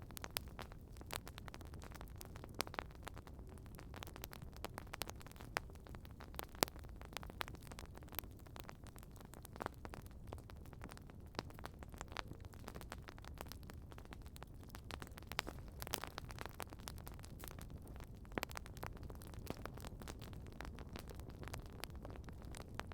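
Wood campfire crackling: irregular sharp pops and snaps, several a second, over a low steady rumble.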